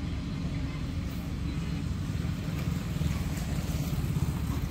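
Diesel engine of heavy road-building machinery running steadily as a low drone, a little louder from about three seconds in.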